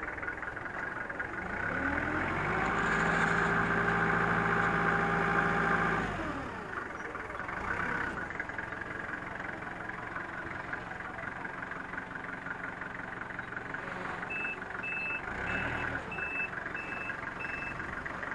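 Forklift engine revs up about a second and a half in and holds high for about four seconds while the mast hydraulics lift the load, then drops back to idle. Near the end the reversing alarm beeps six times, about 0.6 s apart, as the forklift backs up.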